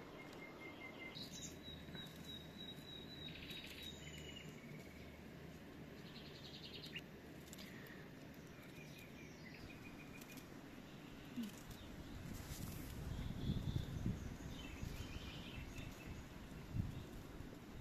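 Faint rural outdoor ambience with small birds chirping now and then in short whistled notes. In the last few seconds there is a louder stretch of low rumbling noise and a couple of sharp knocks.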